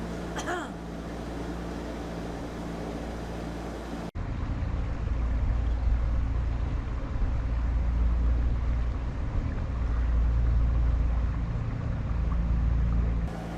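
A narrowboat's diesel engine running steadily under way, a low even hum. After about four seconds the sound cuts abruptly to a louder low rumble over the engine, which drops back just before the end.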